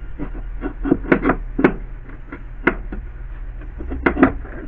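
The wiper arm assembly being handled and fitted into the cowl housing: a series of irregular light clicks and knocks of the parts against each other, over a steady low hum.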